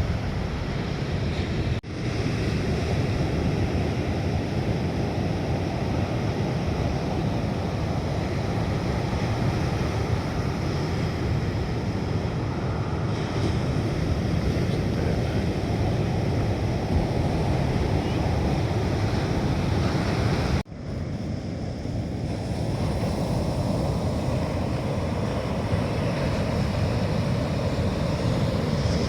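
Sea surf breaking on a beach, a steady rushing wash of waves with wind buffeting the microphone. The sound drops out briefly twice, about two seconds in and about twenty seconds in.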